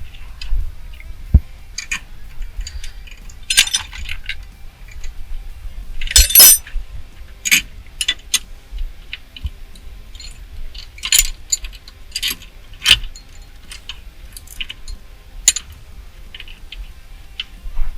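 Irregular sharp metallic clinks and scrapes of a screwdriver and small parts, working at the snap ring in a steering column.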